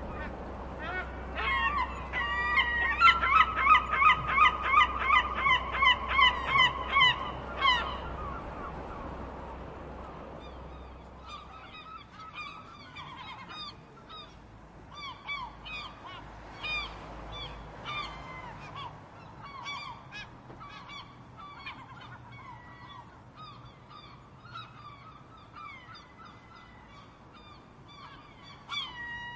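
Seagulls calling. One gull close by gives a long, loud series of rapid yelping calls, about three a second, for several seconds. After that, many gulls call more faintly and irregularly.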